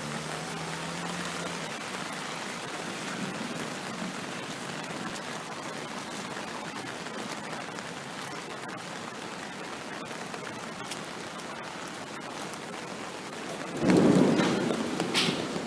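Steady rushing outdoor noise on a phone microphone, with a louder surge about 14 seconds in.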